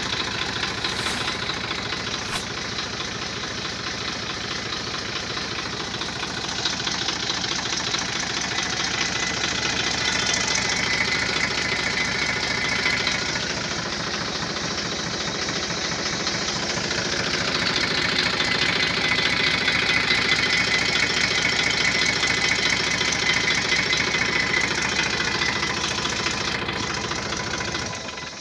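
TAFE 1038 DI tractor's diesel engine idling with a fast, even knocking beat. It gets louder around ten seconds in and again from about eighteen seconds, and cuts off near the end.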